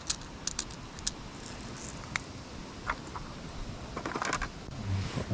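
Light scattered clicks and ticks of small fishing tackle being handled while split shot is sorted out to load a stick float, with a short rustle about four seconds in.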